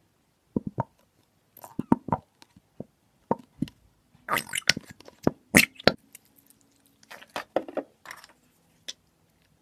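White craft glue glugging and squelching out of a tipped plastic bottle into a bowl, in irregular wet pops and clicks that are busiest about four to six seconds in.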